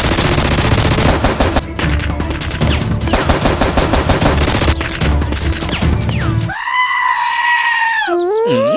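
Rapid-fire gunfire sound effects over background music, then a long held, bleat-like cry that dips slightly in pitch. Near the end comes a quick rising whistle-like glide.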